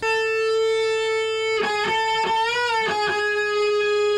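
Electric guitar holding a long sustained high note, picked again several times partway through, with a bend and vibrato about two and a half seconds in.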